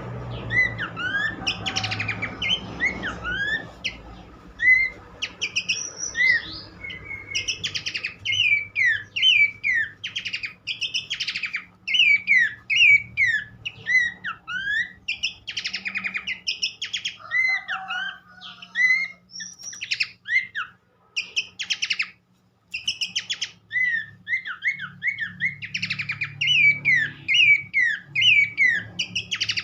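Pelanduk semak (Horsfield's babbler) singing: a dense run of quick whistled chirps sweeping up and down in pitch, with a short pause about two-thirds of the way through, over a faint low hum.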